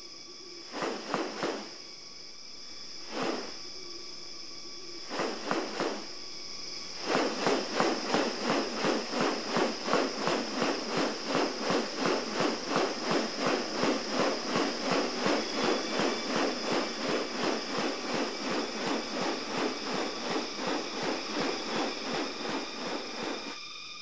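Rainforest sounds: a steady high insect drone, with a few separate harsh calls in the first six seconds. From about seven seconds in comes a rapid, regular pulsing series of calls, about three a second, that stops shortly before the end.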